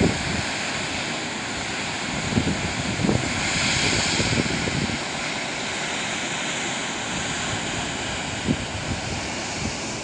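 Wind buffeting the microphone in short low gusts over a steady rushing hiss.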